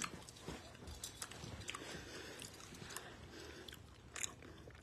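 A person chewing faintly, with small scattered clicks and mouth noises.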